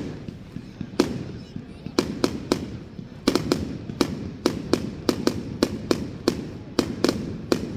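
Fireworks going off in quick succession: sharp bangs about two to three a second, each trailing off in a rumbling echo.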